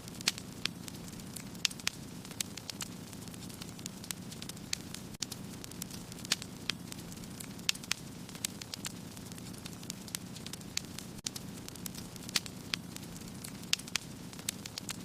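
Fire burning in a fireplace: a steady low noise of the flames with sharp crackles and pops at irregular intervals, a few each second.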